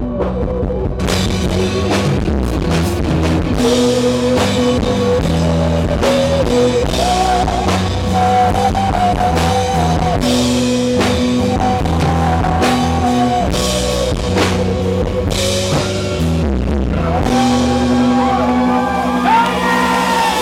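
Live rock band playing a song: drums, bass and guitar with a sung melody, the drums coming in about a second in.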